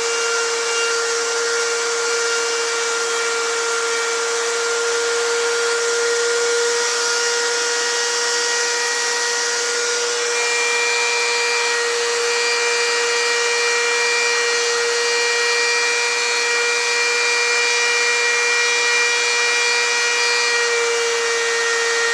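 Metabo electric die grinder running at a steady full speed, a constant high-pitched whine over motor hiss, after its failed upper 6202 bearing was replaced.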